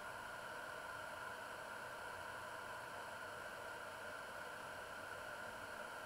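Steady, faint, even hiss with no distinct events.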